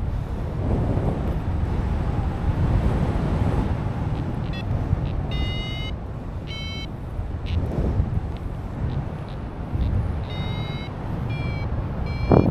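Wind buffeting the microphone in flight, with a paraglider's variometer giving short high beeps in two spells, a few seconds in and again near the end. The beeping is the vario's climb signal: the glider is rising in lift.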